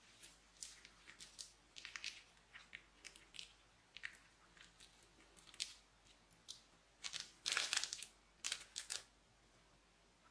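Clear plastic piping bag and the metallic foil flakes inside it crinkling and rustling as they are squeezed and worked out of the bag into a glass dish, in short, irregular crackles. The crinkling gets louder and denser about seven to nine seconds in.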